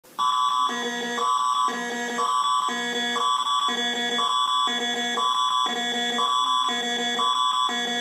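Canadian Alert Ready attention signal: an electronic alert tone switching between a higher and a lower chord about every half second, over a steady high tone. It starts just after the beginning and stops abruptly at the end.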